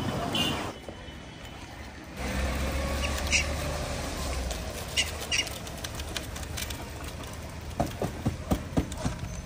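Outdoor ambience with a low rumble, broken by light clicks and taps, a few about halfway and a quick cluster near the end, as biscuits tossed from a cardboard box land on stone paving among feeding macaques.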